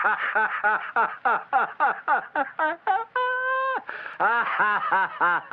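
A man laughing hard, in rapid ha-ha bursts about four a second, broken a little past halfway by one long, high held wail before the bursts start again.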